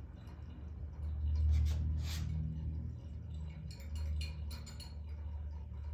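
Magnetic stir bar in the glass flask of a stirring hot plate clicking and knocking against the glass: a couple of clicks about one and a half to two seconds in and a quick cluster around four seconds. A steady low hum runs underneath and gets louder about a second in.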